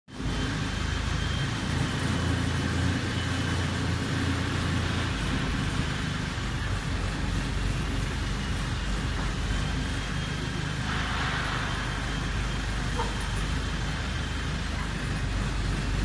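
Diesel engine of a crawler-mounted hydraulic pile driver running steadily, its drone changing pitch slightly about five seconds in.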